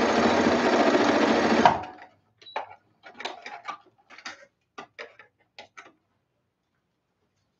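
Brother electric sewing machine stitching at speed, stopping abruptly just under two seconds in. Then a run of short clicks and taps as the work is handled.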